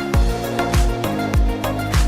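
Background music with a steady beat: an electronic kick drum falling in pitch about every 0.6 seconds, under held bass and melody notes.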